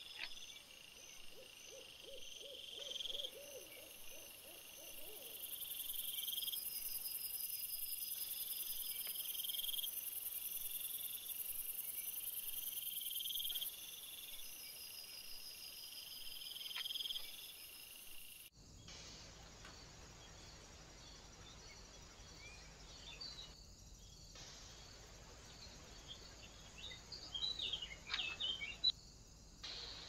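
Insects chirping: a buzzing chirp about a second long, repeating roughly every two seconds. Later, a few short bird chirps and a sharp click near the end.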